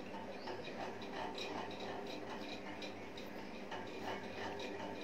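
Fine-tip marker nib ticking and scratching on synthetic paper in short, quick strokes, a few irregular ticks a second, over a faint steady hum.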